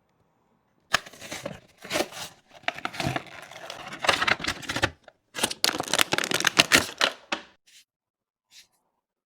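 Toy packaging being handled and opened: rustling and crinkling mixed with quick clicks and taps in uneven bursts. It stops about seven and a half seconds in, followed by a few faint ticks.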